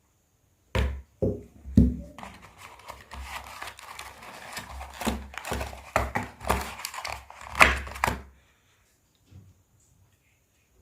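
Phone box packaging being handled and unwrapped: three knocks, then about six seconds of plastic wrap crinkling and tearing with sharp cracks, stopping a little after eight seconds in.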